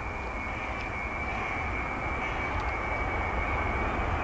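Boeing 747 freighter's four jet engines during the landing rollout: a steady rush of noise with a high fan whine, growing gradually louder.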